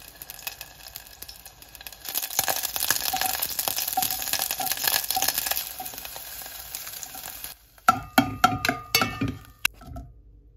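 Food sizzling as it fries in a pan, loud and crackling for several seconds before dying down. Near the end comes a quick run of clinks and knocks, like utensils against cookware.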